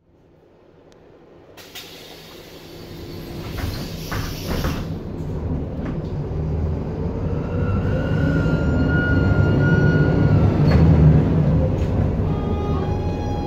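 Volvo 7000A articulated city bus pulling away, its Volvo D7C275 six-cylinder diesel building revs under load, after short hisses of air near the start. A faintly rising whine from the ZF 5HP592 automatic gearbox breaks off with a knock about eleven seconds in, and the level eases slightly as it shifts up.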